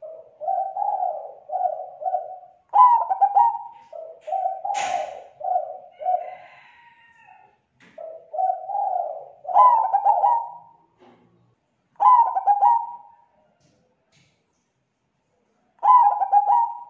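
Zebra dove (perkutut) cooing: repeated phrases of rapid, pulsed low coos, several ending in a brighter, higher-pitched note. One brief sharp noise comes about five seconds in.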